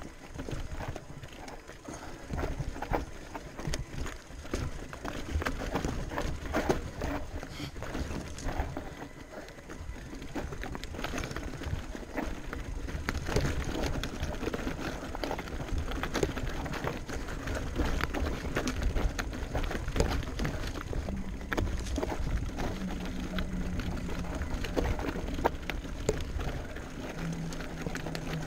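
Electric mountain bike on a rocky trail: a dense, irregular clatter of small knocks and rattles from the bike and the rocks, over a steady low rumble. A faint low steady hum comes in about three quarters of the way through.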